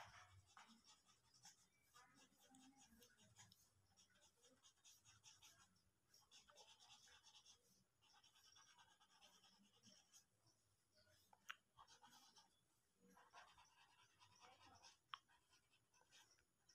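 Pencil scratching on drawing paper in runs of quick, faint shading strokes with short pauses between them. Two sharp clicks come in the second half.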